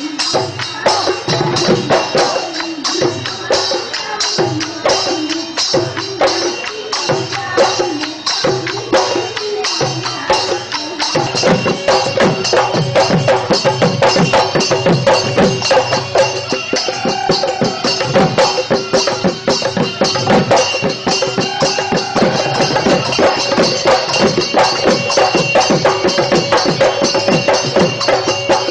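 Live Bihu folk music: a dhol drum beaten by hand in a fast, driving rhythm, with jingling small percussion and a sustained melodic line over it. About eleven seconds in the drumming turns denser.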